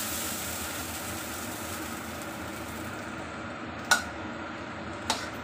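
Eggplant and fried grouper simmering in sauce in a stainless steel wok, a steady sizzling hiss. A metal utensil clinks sharply against the wok about four seconds in and again about a second later.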